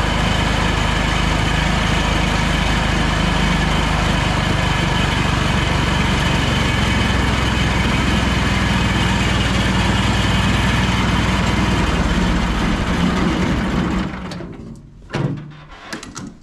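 Small single-cylinder engine of a mini tractor running steadily as it drives, then shut off about fourteen seconds in. A few short knocks follow near the end.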